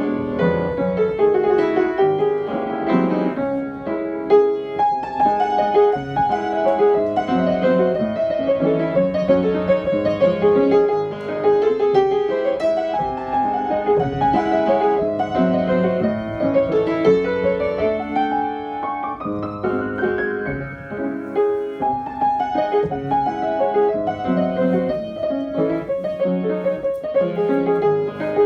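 Piano music: a continuous stream of quick notes, with a rising run a little past the middle.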